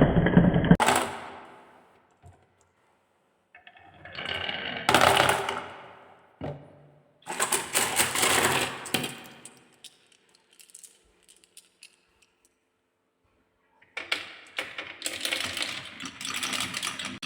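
Marbles rolling and clattering down a wooden marble run in several separate runs, with short silences between them. Near the end comes a longer stretch of rapid clicking as balls tumble over the track pieces.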